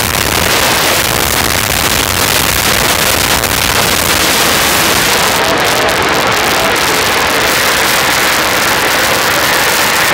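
Dirt late model race cars at full throttle as the pack races around a dirt oval: many V8 engines running together in one loud, continuous mass of engine noise with shifting pitches.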